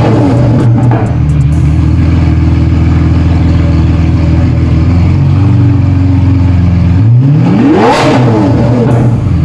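Lamborghini Aventador's 6.5-litre V12 idling with a loud, steady note. It settles from a rev at the very start, then is revved once about seven seconds in, its pitch climbing and falling back to idle.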